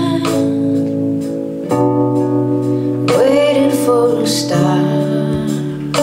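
Music with guitar and a singing voice: held notes and chords, with a melody line sliding up in pitch a little after three seconds in.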